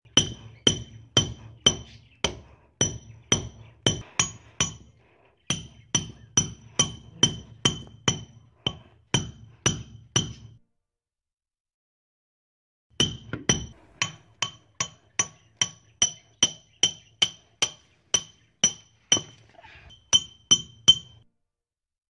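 Hammer driving a nail, about two blows a second, each strike with a short metallic ring. The blows stop for about two and a half seconds about ten seconds in, then start again.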